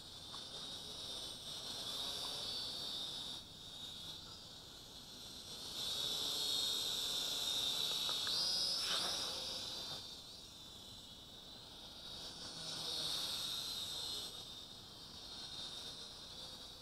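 Small toy quadcopter's motors and propellers whining high-pitched, swelling loudest as it flies low and close in the middle and fading as it climbs away near the end, with a brief rise in pitch about eight seconds in.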